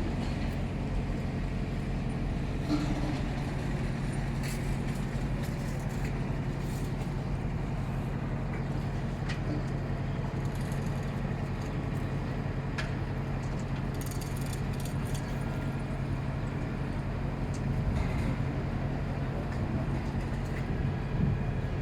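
Large diesel engine running steadily at a low, even idle, with a few faint knocks and clicks.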